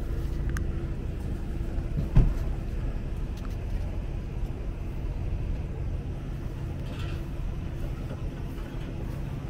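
Steady low hum and rumble of a running motor, with several steady tones under it, and one loud thump about two seconds in.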